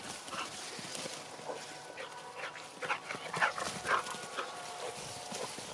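Dog giving short, high-pitched excited whines and yips, many times over, while it runs about at play.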